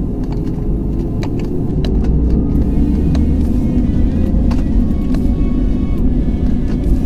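Jet airliner's engines and cabin rumble heard from inside the cabin as it lines up for takeoff, the low rumble growing louder about two seconds in, with scattered light clicks and rattles.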